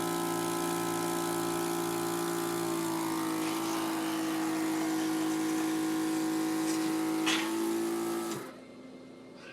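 Portable suction machine's motor running with a steady hum while clearing airway secretions, shutting off abruptly about eight seconds in.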